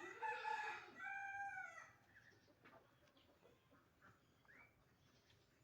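Rooster crowing. The drawn-out crow is already under way and ends about two seconds in, in two phrases. Then come faint pecking taps and a short rising call.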